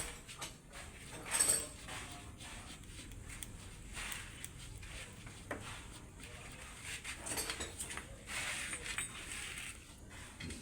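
Scattered metal clinks and light knocks of Mitsubishi Canter transmission gears and parts being handled and fitted together, with a louder knock about a second and a half in.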